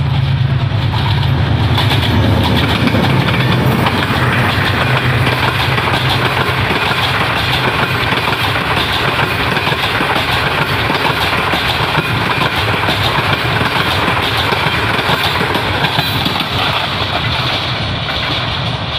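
Passenger express train passing close by: the diesel-electric locomotive's engine hum is loudest for the first several seconds, followed by the steady rumble and rail clatter of the coaches rolling past. The level eases slightly near the end.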